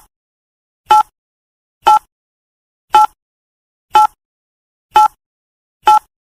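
Countdown timer sound effect ticking once a second: short, identical, pitched electronic ticks with silence in between.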